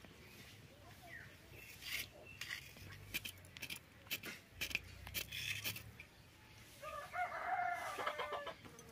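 A knife scraping singed hair and skin off goat legs in a run of short rasping strokes, then a rooster crows once, about a second and a half long, near the end.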